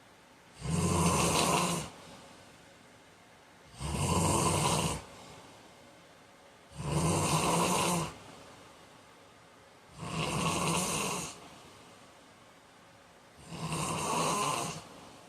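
A man snoring in a steady rhythm: five snores, each a little over a second long, about three seconds apart, with quiet breathing in between.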